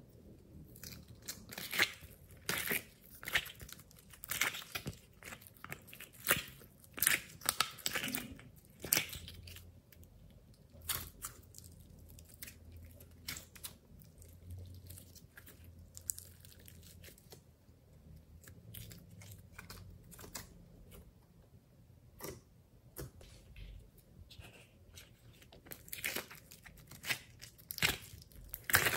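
Glossy slime squeezed, stretched and peeled by hand: sticky, wet crackles and pops. They come in clusters, busiest in the first nine seconds and again near the end, with a quieter stretch in between.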